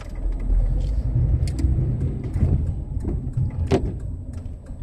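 Car cabin: low engine and tyre rumble as the car rolls forward on a wet, puddled road, easing off near the end, with a few scattered clicks and one sharper knock a little under four seconds in.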